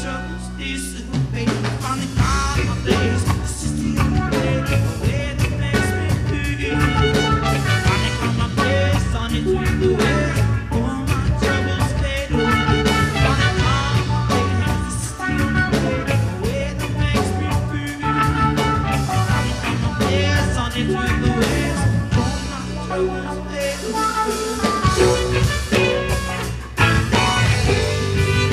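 Live rock band playing an original song with guitar and a steady beat, in a passage without clear vocals.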